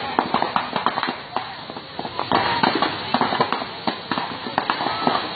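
Rapid, irregular sharp pops and cracks from a burning bamboo fire boat.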